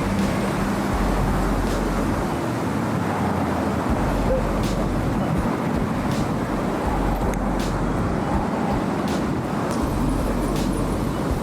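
Steady, loud rushing background noise, with a few faint clicks.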